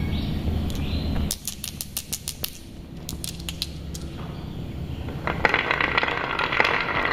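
Glass marbles clicking against each other in a hand in a quick string of sharp clicks, then, about five seconds in, several marbles rolling and rattling down the carved zigzag groove of a wooden pine marble run. A low rumble cuts off about a second in.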